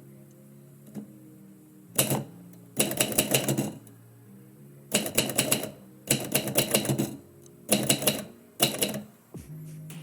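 Typewriter keys being struck in quick runs of keystrokes, with short pauses between the runs.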